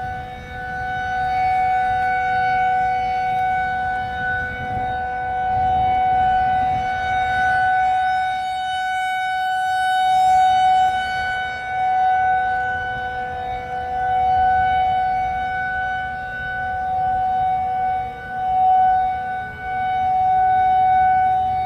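Outdoor tornado warning siren sounding a steady wail, swelling and fading in loudness every few seconds. Near the end a second, lower siren tone glides downward.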